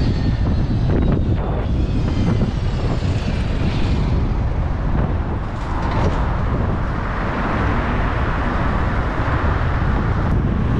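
Wind rushing over the microphone of a camera on a moving bicycle, with the rumble of city traffic passing close: buses and cars. A falling whine sounds in the first few seconds, and a brighter hiss rises from about halfway through.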